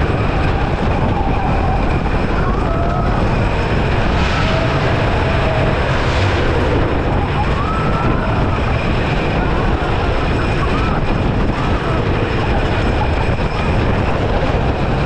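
Gravity Group Timberliner train on a CCI wooden roller coaster running fast along its wooden track, a steady loud rumble and clatter of wheels with wind rushing over the microphone. Short riders' shouts rise over it now and then.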